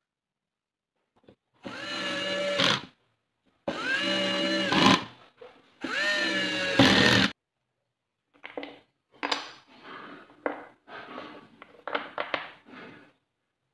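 Cordless drill running in three short bursts of about a second each, drilling into a plywood jig. It is followed by a softer run of irregular wooden clicks and knocks as small wood blocks are handled in a tray.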